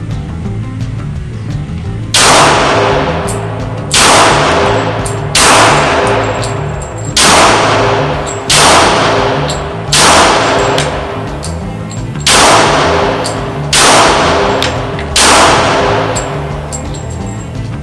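Nine shots from a Glock G23 .40 S&W pistol, fired one at a time about every one and a half seconds, starting about two seconds in. Each shot rings on in the echo of an indoor range, over background music.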